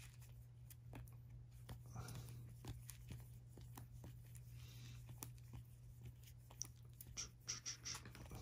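Faint clicks and rustles of sleeved trading cards being handled and shuffled through, a little louder in the last couple of seconds, over a steady low hum.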